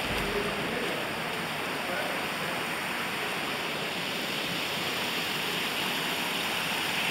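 Shallow creek water running steadily and splashing down small cascades over rock ledges.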